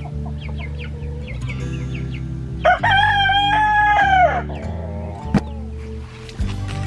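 A rooster crows once, a single drawn-out call of about a second and a half starting near the middle, over a steady low hum. A short sharp click follows a second later.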